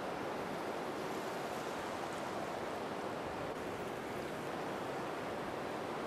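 Steady, even rushing noise with no gull calls, holding at one level throughout.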